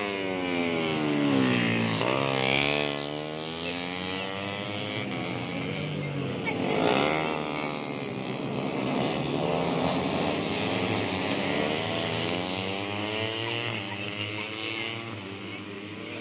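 Several 150cc four-stroke underbone race motorcycles running at high revs, their engine notes overlapping and rising and falling in pitch again and again as they accelerate, shift and pass by.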